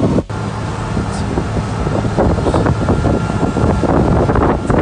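Motorboat running at speed: wind buffeting the microphone over a steady engine hum, with water rushing and splashing along the hull. A short break about a quarter second in.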